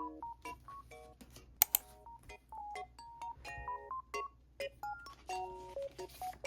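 Light, cheerful background music of short, bright plinking notes and chords. Two sharp clicks come close together about one and a half seconds in, louder than the music.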